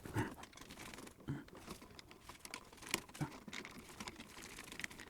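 Faint, scattered small clicks and light rustling from hands working electrical wires onto a wall switch.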